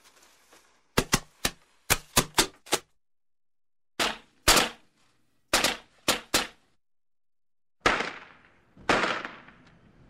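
A string of firecrackers going off: sharp bangs in irregular clusters, seven in quick succession, then six more. Near the end come two bigger bangs, each with a longer fading tail.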